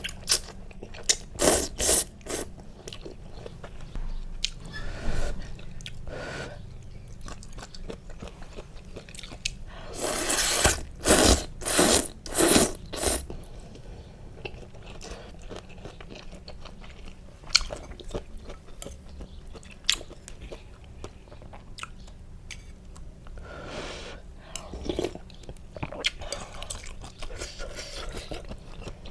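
A person eating luosifen (Liuzhou snail rice-noodle soup): chewing and biting, with runs of louder, sharp mouth sounds in the first few seconds and again about ten to thirteen seconds in.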